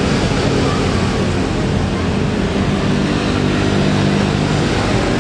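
Jet airliner's twin engines running steadily and loudly as it lands on the runway.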